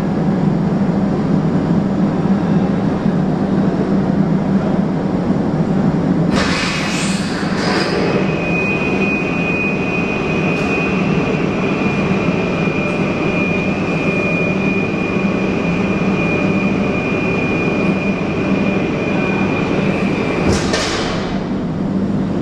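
Loud, steady rumble and hum of hydroelectric powerhouse machinery at the turbine's wicket-gate servomotor, as the speed governor opens the wicket gates. A steady high whine runs through the middle, set between two short rushes of hiss, about six and twenty seconds in.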